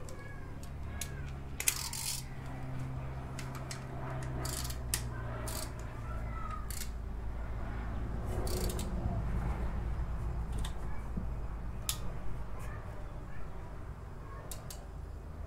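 Hand tools on a motorcycle engine: scattered sharp metallic clinks and clicks as a socket and ratchet are fitted and worked on a bolt low on the engine.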